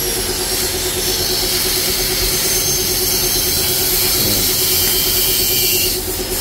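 Gas cutting torch burning steadily with a hissing flame as it cuts into a motorcycle's steel muffler can, with a steady hum underneath.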